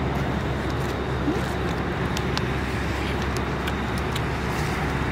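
Steady road traffic noise, with a few faint clicks.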